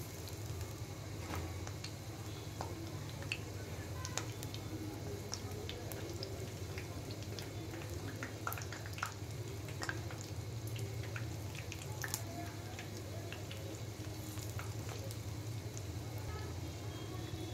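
Jackfruit-batter fritters shallow-frying in a nonstick pan of hot oil: steady sizzling with many scattered pops and crackles, over a steady low hum.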